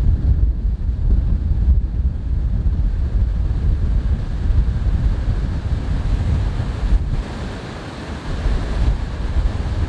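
Strong gusty wind buffeting the microphone: a heavy, uneven low rumble that eases briefly about eight seconds in.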